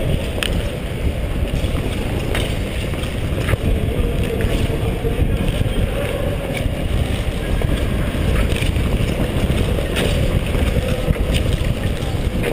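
Wind rushing over a helmet-mounted camera's microphone as a short-track speed skater glides around the rink, with the scrape of skate blades on ice about once a second.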